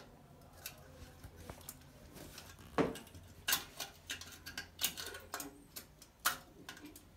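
Irregular clicks and knocks of a hand groping inside a porcelain toilet's drain, trying to grab an object lodged in the trap, with a few louder knocks about three, three and a half, five and six seconds in.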